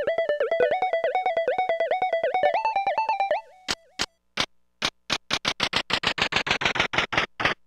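Casio SA-10 keyboard playing a fast run of short, plucked-sounding notes on a preset tone, stopping about three and a half seconds in. Then it gives short, sharp percussive hits, a few sparse ones at first and then faster and faster.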